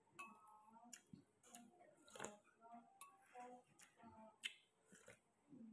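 Faint eating sounds: scattered small clicks and mouth smacks while chewing, with a soft murmur of voice now and then.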